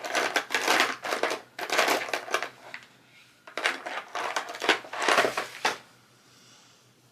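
Papers rustling and crinkling as someone rummages through planner supplies, in three bursts that stop about six seconds in.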